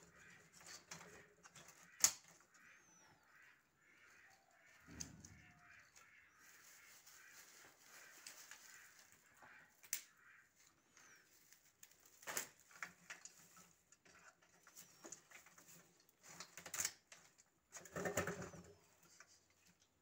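Dry twigs and sticks snapping and clattering as they are broken by hand and dropped into a metal bucket as stove kindling: scattered sharp snaps and knocks, with a few louder clatters in the second half.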